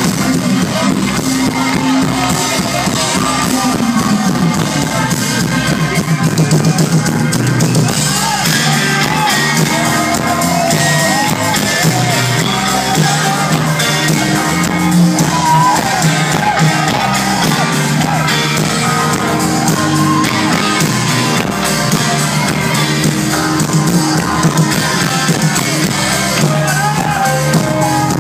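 Live rock band playing loudly, with drums, guitar and singing, and the crowd shouting along.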